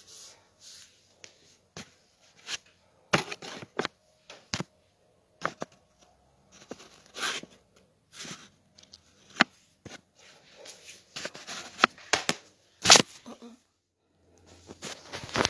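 Handling noise of a phone being fumbled with: irregular taps, knocks and rustles against the phone and its microphone, the loudest knock near the end.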